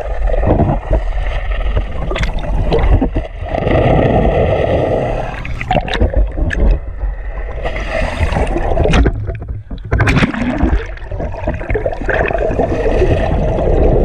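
Water rushing and gurgling past an underwater camera, with a steady low rumble underneath and scattered sharp clicks.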